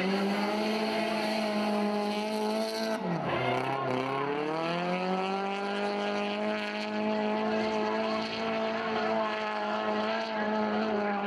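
Drift car engine held at high revs through a long sideways slide, with tyre squeal. About three seconds in, the revs drop sharply and then climb back up to the same steady pitch.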